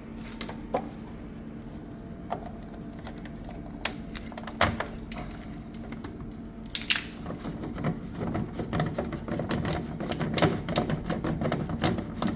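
Scattered clicks and light knocks of plastic tubes and filter parts being handled, growing busier in the second half, over a steady low hum.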